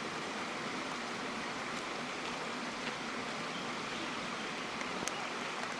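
Steady, even rush of running water from a mountain stream cascade.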